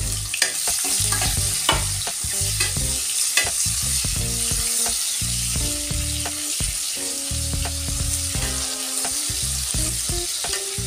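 Freshly added sliced onions sizzling in hot oil with cumin seeds and whole spices in a nonstick kadai, with a steady high hiss. A spatula scrapes and knocks against the pan over and over as the onions are stirred, in the first stage of frying them to light golden.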